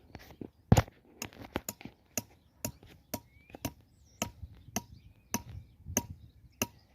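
Hammer blows at a steady rhythm of about two a second, each strike ringing briefly like metal on metal: metal stakes of a bird-trapping net being hammered in.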